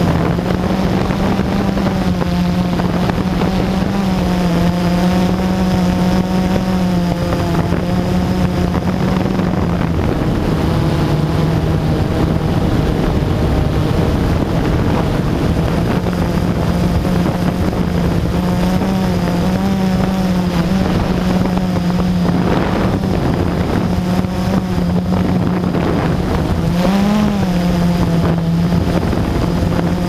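Blade QX3 quadcopter's electric motors and propellers running in flight, heard close from the onboard camera: a steady buzzing hum whose pitch wavers up and down as the motors adjust, with a brief upward swoop near the end. Wind rushes on the microphone underneath.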